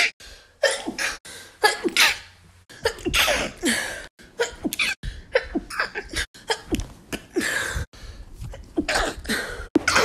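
A woman sneezing again and again in quick succession, a dozen or more short, sudden sneezes one after another.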